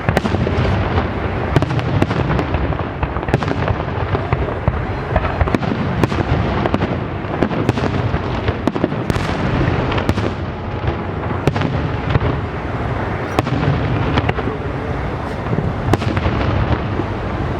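Fireworks display: a continuous barrage of shell bursts and crackling, with dull booms rolling and echoing underneath and many sharp bangs close together.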